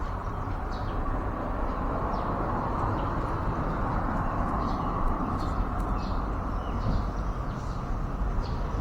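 Steady background rumble of road traffic, with faint short bird chirps scattered over it.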